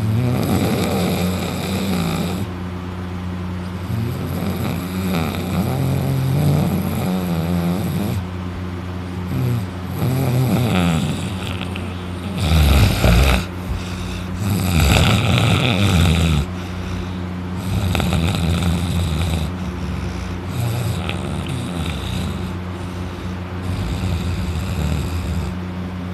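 A person in deep sleep snoring loudly, lying on their back with the mouth open: a long snore comes about every three to four seconds, the loudest ones just past the middle.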